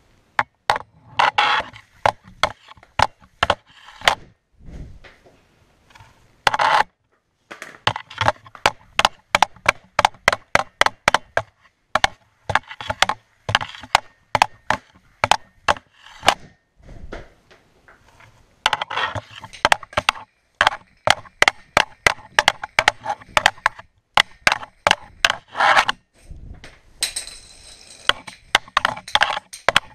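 A hockey stick blade tapping a small stickhandling ball back and forth on a hard floor: quick wooden-sounding clacks, about four or five a second, in runs broken by a few short pauses.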